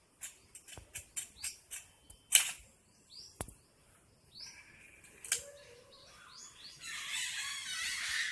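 Small birds chirping, building into a dense chorus of chirps near the end, with a few sharp cracks among them, the loudest about two and a half seconds in.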